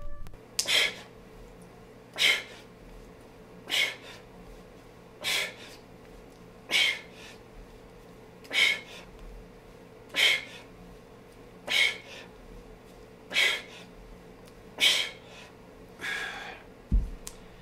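Sharp, forceful exhales in a steady rhythm, about one every one and a half seconds, eleven in all, from a man doing kettlebell swings and breathing out on each swing. A short low thud near the end.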